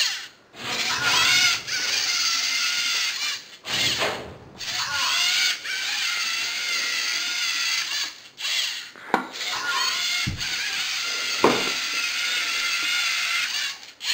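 Lego Mindstorms NXT robot's servo motors whining as it drives and turns, in several runs broken by short pauses, with the pitch wavering slightly. A few sharp knocks come between about 9 and 11.5 seconds in.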